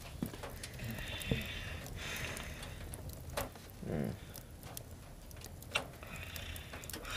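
A man sniffing red wine in a glass and then sipping it, with a brief voiced hum about halfway through and a few light clicks of glass.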